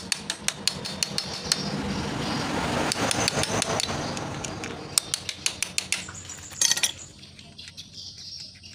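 Light hammer taps and metal clinks on the clutch assembly of a Honda Revo motorcycle engine, struck gently to work a part loose; the taps come quickly at first, with a short flurry a little before the end. A rushing noise swells and fades in the middle.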